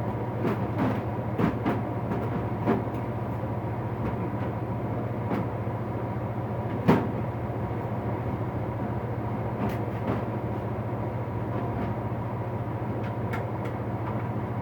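Items being handled and set down on shelves: scattered knocks and clicks, thickest in the first few seconds, with one louder knock about seven seconds in, over a steady low hum.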